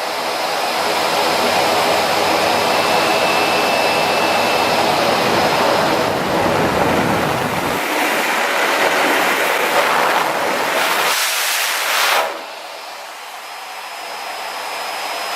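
Vacuum cleaner running right at the camera's lens, a loud steady rush of suction drawing at the lens to pull dust out. About twelve seconds in it turns noticeably quieter and thinner and keeps running.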